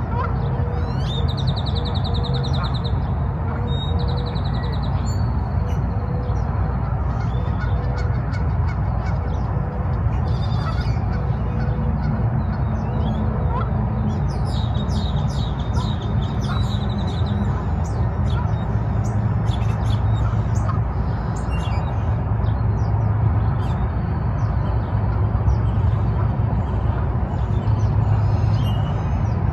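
Birds chirping and calling over a steady low rumble. Runs of quick high chirps come about a second in and again around the middle, with scattered short calls in between.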